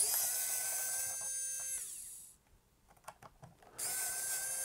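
Electric precision screwdriver whirring as it backs a small screw out of a camera body: a high, dentist-drill-like whine that winds down about two seconds in. A few small clicks follow, then the motor runs again from about four seconds.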